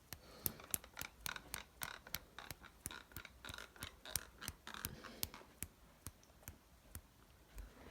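Faint, irregular clicks, about three or four a second, with soft scraping in the first few seconds: small hard objects being handled.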